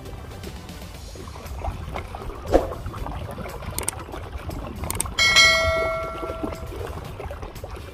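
A bell-chime sound effect from a subscribe-button animation: a single bright ding of several ringing tones about five seconds in, fading out over about a second and a half. A sharp click comes about two and a half seconds in, over a steady hiss of wind and water.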